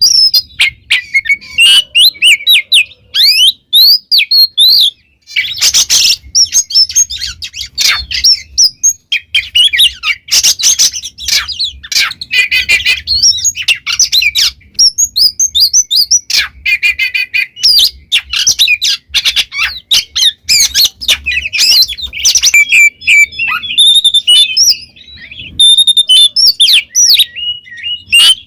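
Oriental magpie-robin (kacer) singing vigorously: a continuous, varied song of rapid whistled notes and swooping glides, with harsh, rasping passages mixed in.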